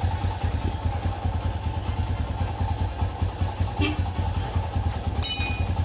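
Motorcycle engine idling steadily with an even, rapid pulse. A brief high ringing sounds about five seconds in.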